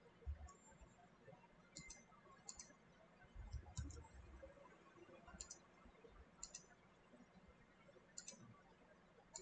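Faint computer mouse button clicks, about seven of them at uneven intervals, each a quick press-and-release, with a couple of soft low thuds.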